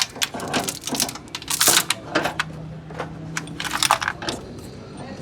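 Irregular metallic clinks and taps of tools and engine parts being handled during an engine overhaul, with a faint steady hum in the middle.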